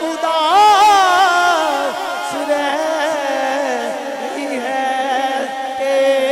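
A man singing a naat solo into a microphone, his voice sliding through long, ornamented, wavering phrases. A steady held tone runs underneath.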